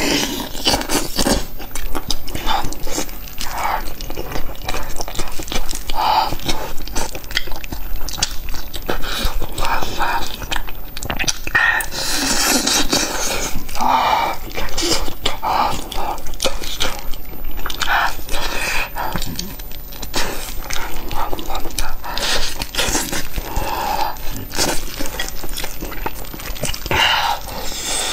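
Close-miked eating of a whole steamed chicken: wet tearing of meat and skin by gloved hands, with chewing and lip-smacking clicks.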